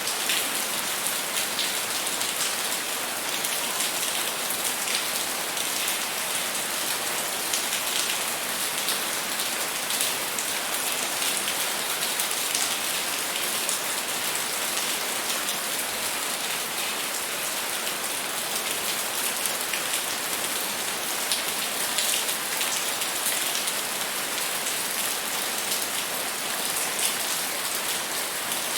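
Steady rainfall: an even hiss of rain on a surface with fine patter of individual drops.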